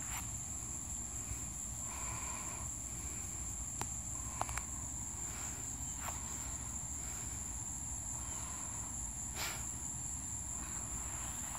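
Steady high-pitched insect chorus, like crickets trilling, over a low rumble, with a few sharp clicks.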